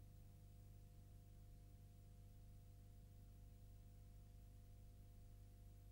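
Near silence: a faint, steady hum.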